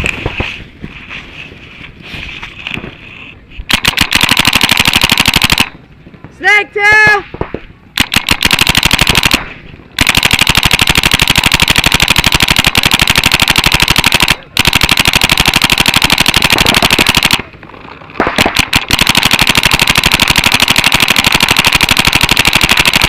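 Paintball markers firing in long, very rapid strings of shots, each several seconds long with short breaks between them.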